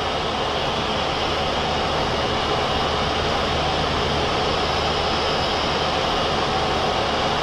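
Steady flight-deck noise of a Boeing 737-400 in climb: an even rush of air with a low hum underneath from the engines and air conditioning.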